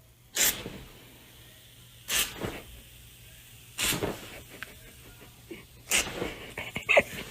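A pet sneezing four times, each a short sharp burst, about two seconds apart.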